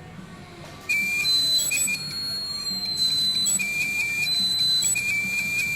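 Seagate 2.5-inch 5400 rpm 320 GB laptop hard drive giving a loud, high-pitched whistling squeal that starts about a second in and keeps breaking off and restarting, its pitch drifting slightly. It is the abnormal noise of a failing drive, which the technician calls already very loud.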